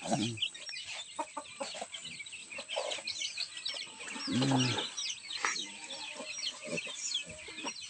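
Domestic chickens: many chicks peeping in quick, continual chirps, and a hen clucking, her loudest call about four and a half seconds in.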